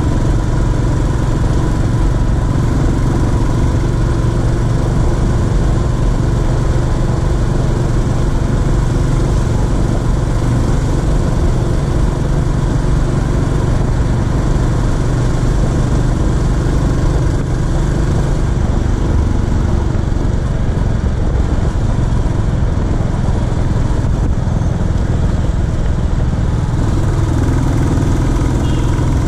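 Royal Enfield Classic 350's single-cylinder engine running steadily at an even cruising pace, with a constant rush of wind and road noise over it.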